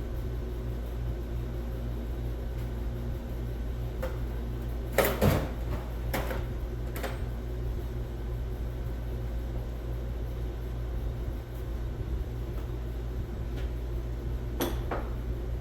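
Steady low hum of a workshop, broken by a few short knocks and a brief clatter about five seconds in, with single knocks a second or two later and again near the end.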